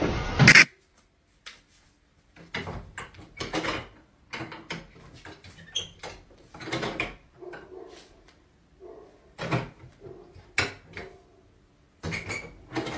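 A loud noisy burst in the first half-second, then a metal lever door handle and its latch worked over and over. It gives irregular clicks and rattles, with the wooden door knocking in its frame.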